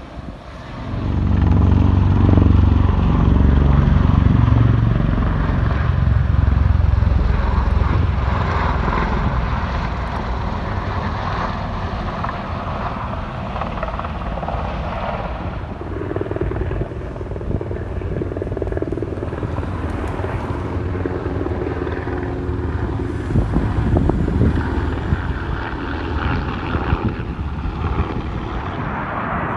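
Military rotorcraft flying low overhead: loud rotor and engine noise that swells about a second in and is loudest for the next several seconds, then carries on as a steady drone.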